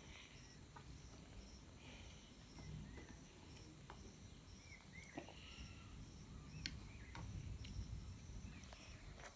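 Quiet eating sounds: wooden chopsticks clicking lightly against a plate, and noodles being slurped and chewed in the second half, with faint chirping in the background.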